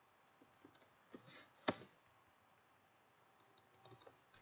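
A few scattered keystrokes on a computer keyboard over near silence, one louder than the rest about a second and a half in.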